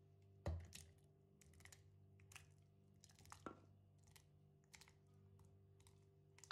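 A knock about half a second in and a smaller one near the middle, among light clicks and scrapes of a spatula against a wok as thick tomato-onion-cashew gravy is scraped into a stainless steel blender jar. A faint steady hum runs underneath.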